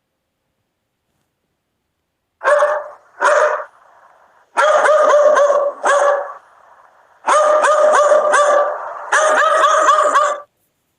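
A dog barking: two single barks, then several quick runs of rapid barks.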